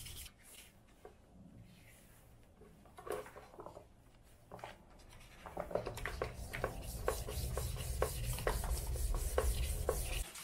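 Plastic motorcycle front mudguard being hand-sanded with worn sandpaper to knock back a too-thick coat of varnish. Quiet at first, then from about halfway a run of rubbing strokes, roughly two or three a second.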